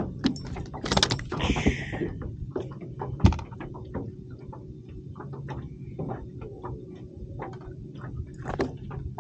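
Scattered knocks and clicks of handling on a fishing boat, with one loud knock about three seconds in, over a steady low hum.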